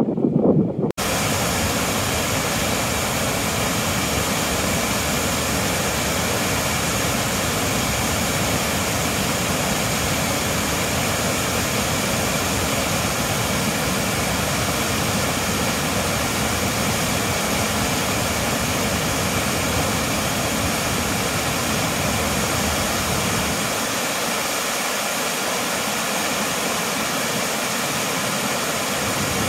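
Waterfall, one main fall and a thin side fall, pouring over a rock ledge into a rocky creek: a steady, unbroken rush of falling water. The lowest part of the sound thins a little in the last few seconds.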